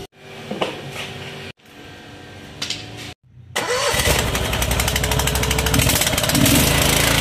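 Small petrol engine on a drain-cleaning water jetter starting about halfway in, then running loud and steady with a fast even firing beat.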